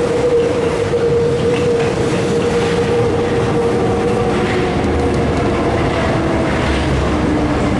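MF67 metro train running through a tunnel and into a station, heard from inside the car: a steady rumble of wheels on rail with a motor whine that fades about halfway through, giving way to lower tones near the end as the train pulls in.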